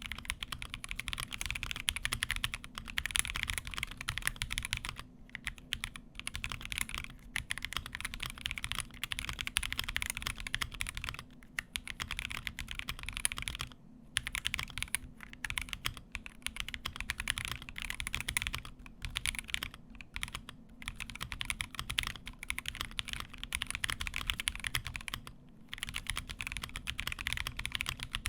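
Fast typing on the Akko ACR Pro Alice Plus, a gasket-mounted Alice-layout mechanical keyboard: rapid runs of key clicks with short pauses every few seconds.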